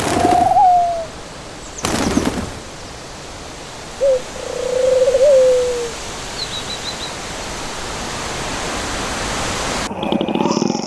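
An animal's drawn-out call, heard twice, each falling in pitch at the end, over a steady hiss of background noise. A few faint high chirps come in the middle.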